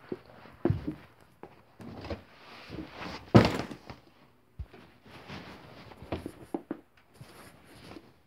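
Irregular knocks, thumps and rustling as a handheld phone is carried and moved about, with one louder, longer rushing thump about three and a half seconds in.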